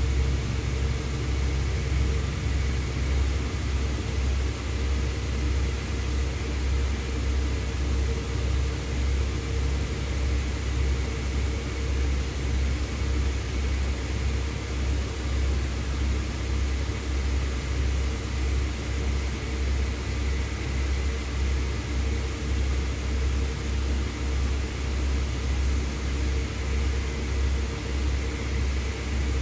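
Distant tiltrotor aircraft: a low, even rumble that pulses about twice a second, with a faint steady hum above it.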